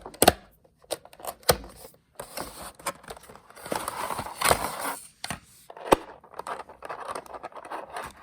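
A product box being opened: tape peeled, cardboard and plastic packaging rustling and scraping, with several sharp clicks and knocks, the loudest about a third of a second in, around a second and a half in, and near six seconds in.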